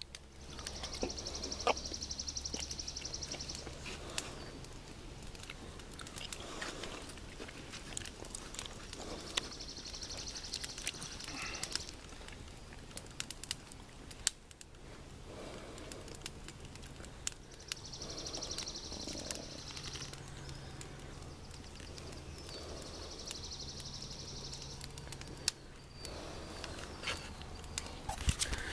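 Wood fire crackling and popping in a metal drum fire pit, with scattered sharp snaps. A songbird sings a high, rapid trill four times, each lasting two to three seconds, several seconds apart.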